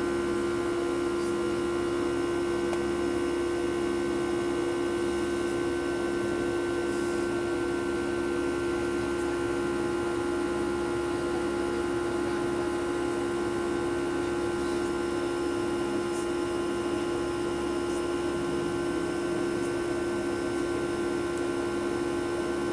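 Airliner jet engines and airflow heard inside the passenger cabin during the climb after takeoff: a constant drone with a strong steady hum tone over an even rush of air.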